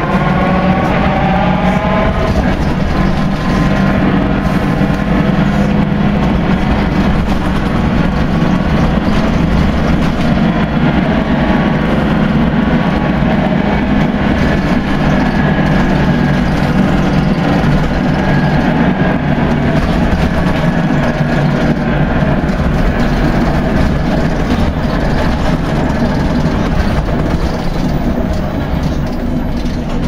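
Volvo Wright Renown bus heard from inside while under way: loud, steady engine and drivetrain noise with a churning sound likened to a washing machine, which the uploader guesses is a failed differential. In the first couple of seconds a whine climbs in pitch as the bus gathers speed.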